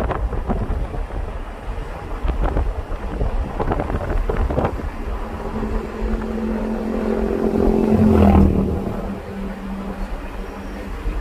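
Wind buffeting the microphone over the low rumble of a moving car. Just past the middle an engine hum comes in, swells about eight seconds in, then drops in pitch and fades.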